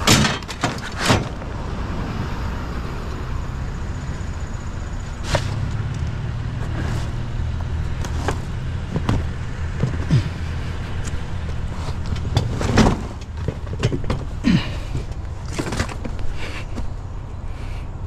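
Scrap being shifted and packed into a loaded vehicle: scattered knocks and clatters, the loudest about two-thirds of the way through, over a steady low rumble.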